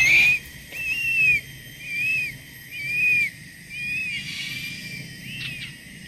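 Crested serpent eagle calling at the nest: a run of thin, arched whistled notes, about one a second, growing fainter toward the end.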